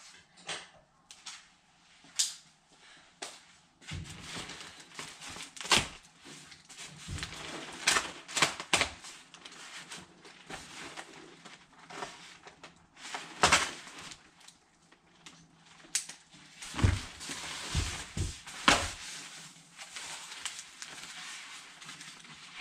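Plastic packaging wrap crinkling and rustling as it is handled and pulled off a part, with many irregular sharp crackles.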